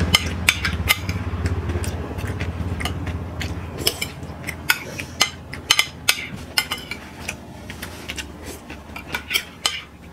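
Metal spoons clinking and scraping on plates of khichuri while eating: irregular sharp clicks, a few each second.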